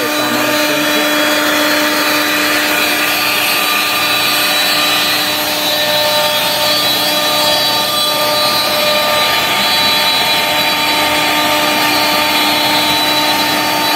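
CNC router spindle cutting a sheet of white MDF: a steady whine of several held tones over the constant noise of the bit in the board, with the dust extractor drawing chips up the hose.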